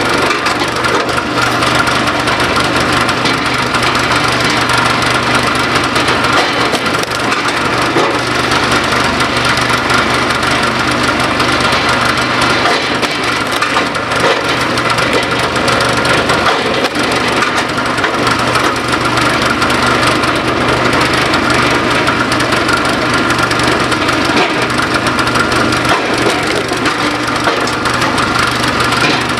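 Gas engine of a RapidFire flywheel log splitter running steadily while logs are split, with sharp cracks of wood splitting apart at intervals.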